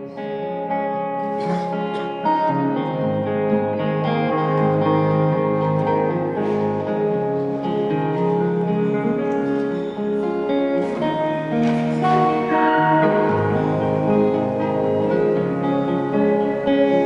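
Acoustic guitar and electric guitar playing an instrumental break between sung verses of a folk song, with chords and held single notes and no singing.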